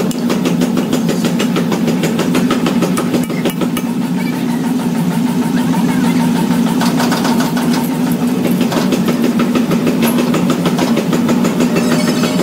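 An engine running steadily at an even, low pitch, with a fast, regular clatter over it.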